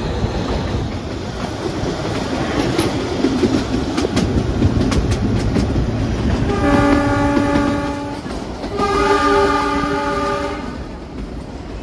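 Narrow-gauge toy train running with a steady rumble and clatter of wheels over rail joints. Just past halfway its diesel locomotive's horn sounds two blasts, the second a little longer.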